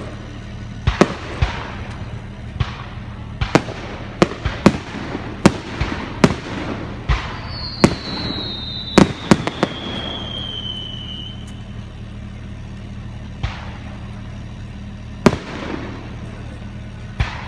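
Fireworks: aerial shells bursting in a rapid series of sharp bangs, each with a short echoing tail, thinning to a few scattered bangs after about ten seconds. A whistle glides down in pitch for a few seconds near the middle.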